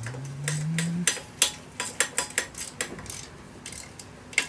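Metal hand tools clicking and clinking at uneven intervals on the exhaust muffler of a Honda Dio scooter as it is fitted back on. A short low hum rises in pitch at the start.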